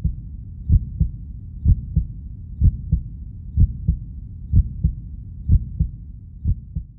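A slow heartbeat sound from a horror film score: paired lub-dub thumps, one pair about every second, over a low, dark rumble.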